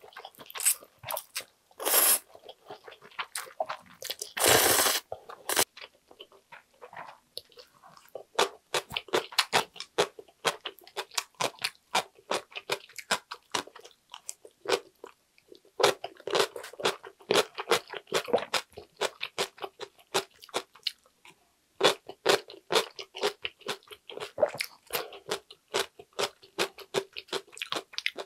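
Close-miked eating of instant ramyun noodles: two long noodle slurps in the first five seconds, then steady chewing with many small wet clicks and smacks.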